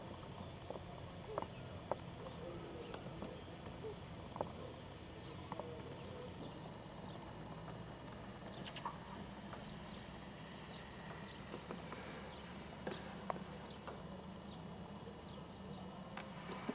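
Outdoor background with a low steady hum and a handful of short, sharp ticks scattered through it; a thin, steady high whine runs for the first six seconds or so, then stops.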